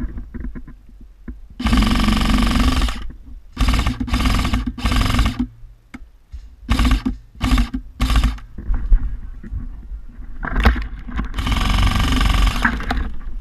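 Airsoft electric gun firing full-auto bursts: a long burst about two seconds in, a quick run of short bursts after it, three more short bursts, and another long burst near the end, over a steady low rumble.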